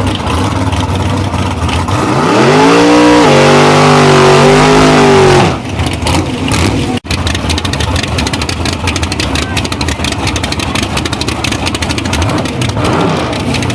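Drag car engine at full throttle: the revs climb, drop once at a gear change about three seconds in, then hold until the sound cuts off suddenly about five and a half seconds in. A steady noisy background of engines fills the rest.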